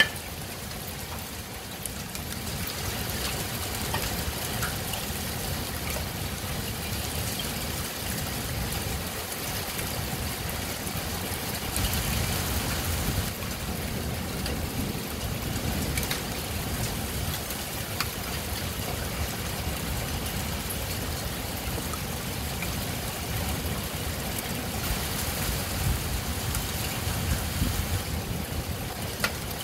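Heavy rain falling steadily during a thunderstorm, with low rumbling swells now and then.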